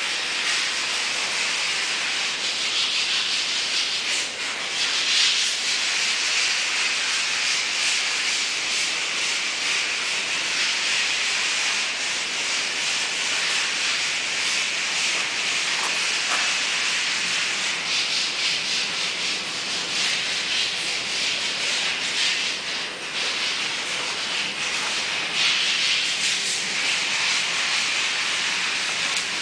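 A steady hiss that starts suddenly and carries on with small swells in loudness.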